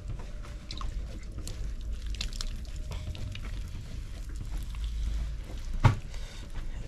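Wet clay squelching under a potter's hands on a spinning potter's wheel, over a steady low rumble. A sharp knock comes near the end.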